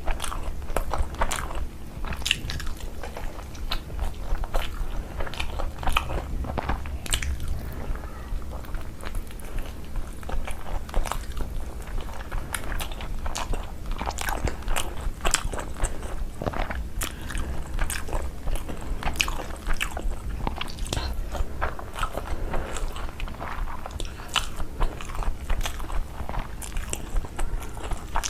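A person chewing and biting food, with many irregular sharp crunchy clicks.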